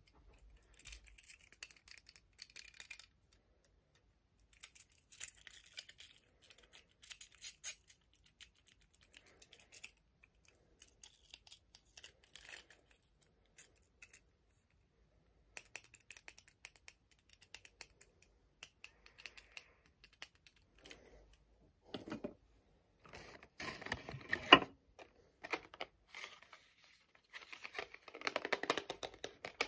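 Fingernails tapping and scratching on small hard plastic objects, such as a toy figure, in quick light irregular clicks with short pauses. Louder rubbing and rustling comes in over the last several seconds as a card or packet is handled.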